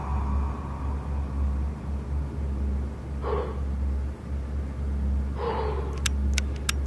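Steady low rumble with two short, gasping breaths, about three and five and a half seconds in, then a quick run of about five sharp clicks near the end.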